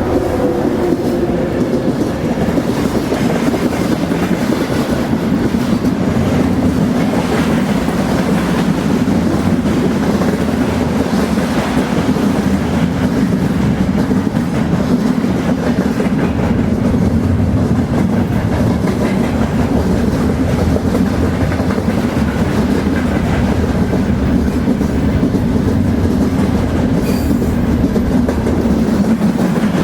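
Train running along the track: a steady, loud rumble with the wheels clicking over rail joints.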